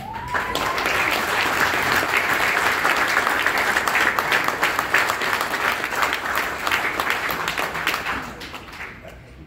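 Audience applauding as an award winner comes up; the clapping swells quickly, holds, then fades out about a second before the end.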